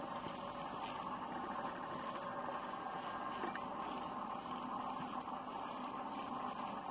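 Plastic-bag gloves rustling and crinkling softly as hands knead a cornstarch-and-water mixture in a plastic bowl, over a steady background hiss.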